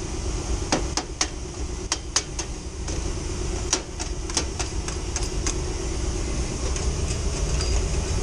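Steady low hum of running HVAC equipment in a drive room, with a dozen or so sharp, irregular clicks and taps.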